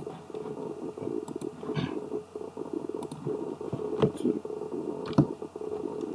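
Several sharp clicks from a computer mouse and keyboard, the loudest about four and five seconds in, over a steady low background rumble.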